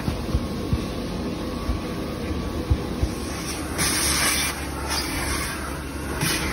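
Short, repeated bursts of hissing spray from a car-wash nozzle, starting about four seconds in, over a low rumble with scattered thumps.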